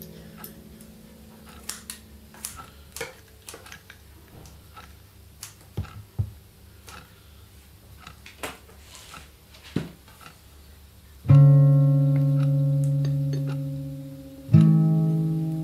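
Background music of slow plucked guitar chords, two of them loud and ringing out as they fade, one about two-thirds of the way in and one near the end. Before them comes a quieter stretch of scattered light clicks, which match scissors snipping wheatgrass.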